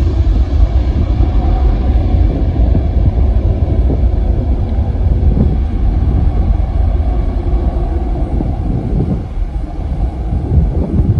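Twin-engine jet airliner on its takeoff roll, engines at takeoff thrust: a loud, steady low rumble that eases slightly near the end as the aircraft lifts off.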